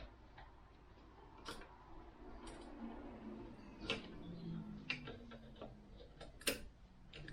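Light, irregular clicks and taps of hand tools working at a seized broken bolt, a few sharper ones standing out.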